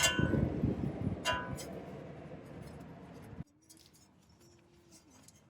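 Hand tools clinking on metal while the wheel speed sensor's Allen bolt is worked loose: two sharp metallic clinks with a short ring, a little over a second apart, over rustling handling noise. The sound drops off abruptly about three and a half seconds in, leaving a faint hum.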